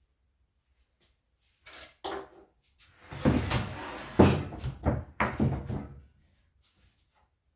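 Wooden knocks and scraping: a sheet of plywood being shifted and set in place, with several loud thuds between about two and six seconds in.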